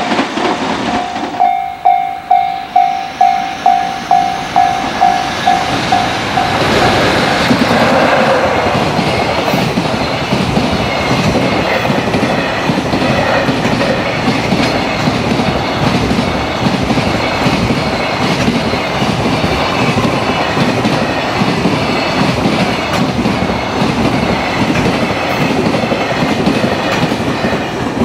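Level-crossing warning bell ringing at about two strokes a second. About six seconds in, a high-speed container freight train arrives and runs past at the crossing, its wagons rumbling with rail-joint clickety-clack and drowning out the bell.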